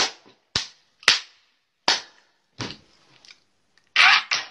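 A series of sharp hand smacks, about six, unevenly spaced roughly every half to three-quarters of a second, then a louder, longer burst near the end.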